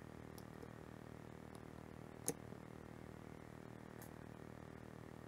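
Faint handling clicks of a stepper motor and a metal rotary-axis housing being fitted together, with one sharp click a little over two seconds in, over a steady low hum.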